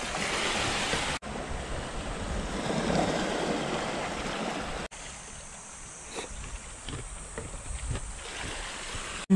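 Outdoor noise of wind and small waves washing on a pebble shore, louder in the first half. In the second half a few light clicks, typical of chopsticks tapping a bowl.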